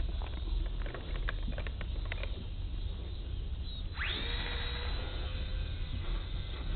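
Small electric motors of an EasySky micro P-38 Lightning RC plane spooling up about four seconds in with a sharp rising whine, then holding a high steady whine at power. Low wind rumble on the microphone and a few faint clicks before the motors start.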